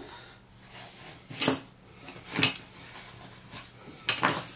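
Diagonal cutters snipping and stripping the insulation off the ends of red electrical wires: three short sharp snips, two close together near the middle and one near the end.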